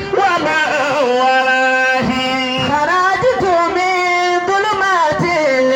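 A man's solo voice chanting a sung refrain in Arabic-Yoruba Islamic sermon style, drawing out long notes that slide up and down in pitch.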